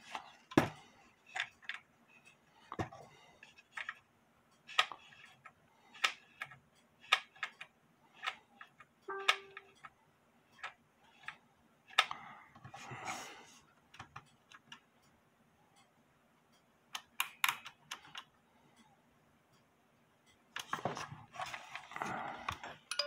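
Hands working a cuckoo clock's wooden case and brass movement: irregular clicks and taps of metal parts and wood, with some rustling. A brief ringing note sounds once near the middle.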